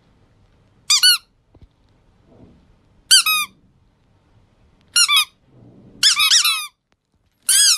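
Squeaky toy squeaking in five short bursts of two to four quick, high squeaks each, with quiet gaps between.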